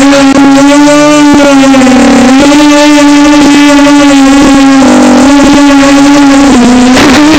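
Model aircraft motor and propeller run up close to the microphone: a very loud, steady, high-pitched drone that dips slightly in pitch about two seconds in and again around five seconds.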